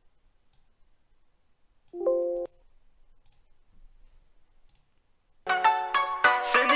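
Near silence broken by one short electronic chime about two seconds in. Near the end a rap song's intro starts: a keyboard melody of quick notes, joined by sharp clicking beats.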